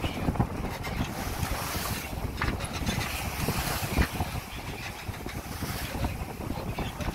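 Wind buffeting the microphone over the rush and splash of water along the hull of a Hunter 356 sailboat sailing at hull speed, with one sharper peak about four seconds in.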